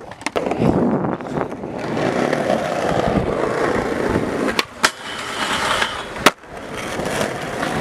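Skateboard wheels rolling steadily on pavement, with sharp clacks of the board about four and a half seconds in, twice in quick succession, and again after about six seconds.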